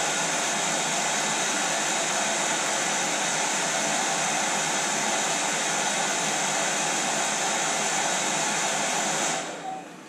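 Hand-held hair dryer running steadily, blowing hot air onto a thermostat's temperature sensor to warm it. It winds down and stops near the end.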